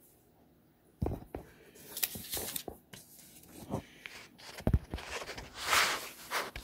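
Handling noise: a sheet of paper being moved and rustled on a wooden table, with scattered knocks and one sharp thump about two-thirds of the way through, then a longer rustle near the end.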